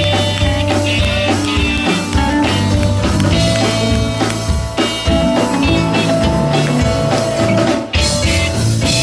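A live gospel band playing an instrumental passage: drum kit, bass and guitar over held sustained notes, with a short break near the end.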